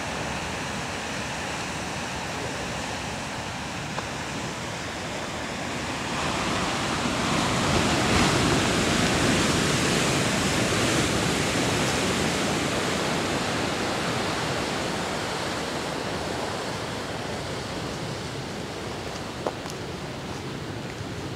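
Ocean surf washing against the rocky shore, a steady rushing noise that swells into a louder surge about six seconds in and slowly fades over the next ten seconds. A single faint tick sounds near the end.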